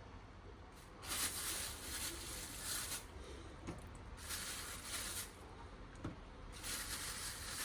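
Three bursts of hissing, each a second or two long, with quieter gaps between them.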